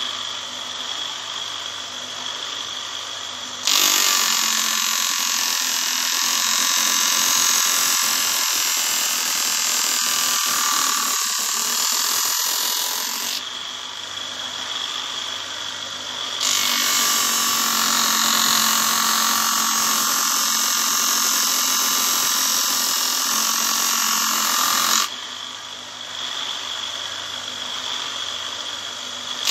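Small electric knife-sharpening machine running steadily, with a blade pressed to its grinding wheel twice: each time the sound turns louder and harsher for about nine to ten seconds, then drops back to the machine's steadier hum.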